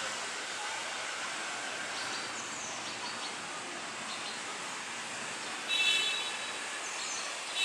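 Steady outdoor background noise with a few faint, short high chirps. About six seconds in there is a brief, louder, shrill sound made of several high tones.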